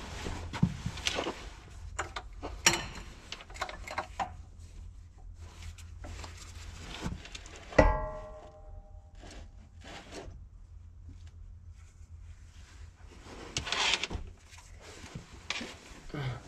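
Scattered metal clinks and knocks from handling parts and tools under a backhoe while lining up a transmission on a jack. One sharp metal clank rings briefly about eight seconds in. A low steady hum runs underneath.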